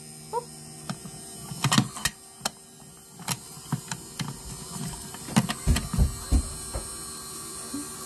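Irregular plastic clicks and knocks as a small plastic makeup brush washing machine is handled and its clear plastic lid is opened, with a few heavier low knocks about five and a half to six and a half seconds in, over a steady low hum.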